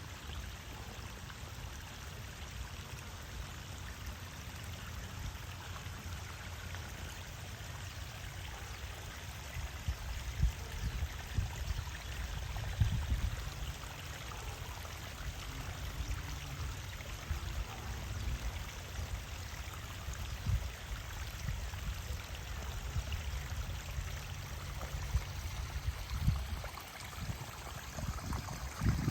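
Water running steadily over a small waterfall, a continuous rushing splash, with irregular low rumbles and thumps coming and going.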